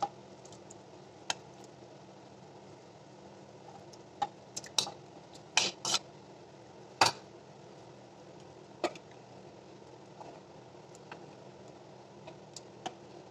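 A spoon and bowl clinking against the rim of an aluminium pot as raw shrimp are scraped into simmering curry: a cluster of sharp knocks in the middle, then light spoon taps against the pot near the end while stirring, over a low steady hiss.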